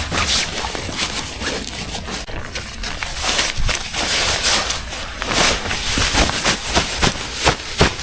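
Irregular rustling, clicks and knocks, the sound of gear or objects being handled, with a low rumble of wind on the microphone underneath. The knocks come thicker and sharper near the end.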